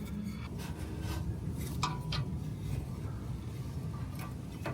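Faint clicks, light scraping and small metallic knocks of an exhaust flap actuator and its bolts being handled and fitted by hand, over a steady low rumble.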